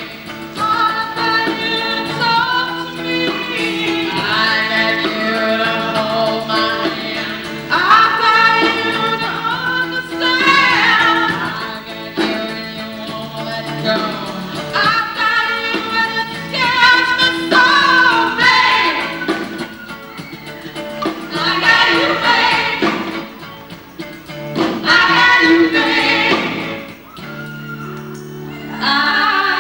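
Live pop band with female voices singing long held notes in phrases of a few seconds, from a VHS camcorder recording of the performance.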